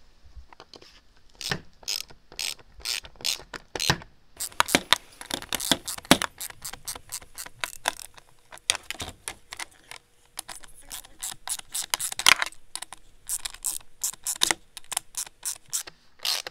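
Hand ratchet with a hex socket clicking in runs of rapid clicks with short pauses as screws are driven directly into a plastic accessory mount.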